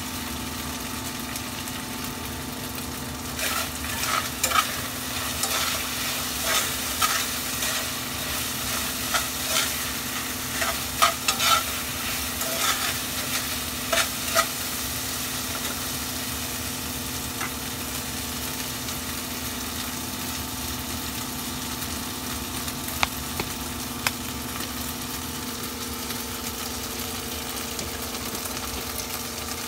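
Minced meat sizzling in a stainless steel saucepan over a gas flame. From about 3 seconds in until about 15 seconds in, a spoon clinks and scrapes against the pan as the meat is stirred. A steady low hum runs underneath.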